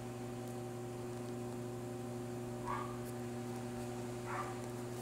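Steady electrical hum with several even pitched lines and a light hiss, with two faint short chirping sounds about two-thirds of the way in and near the end.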